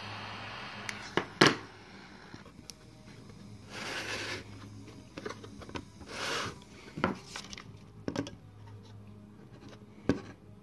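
Small butane torch hissing, cutting off about a second in, followed by two sharp knocks. Then scattered taps and clicks from handling thin aluminium sheet pieces and a plywood block, with two short rushes of noise.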